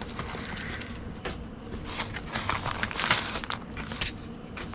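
Plastic poly mailer bag and cardboard mailing envelope crinkling and rustling as they are handled, in irregular bursts.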